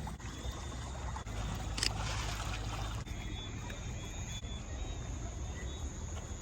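River water trickling and lapping quietly around a river raft over a steady low rumble, with one brief knock just under two seconds in.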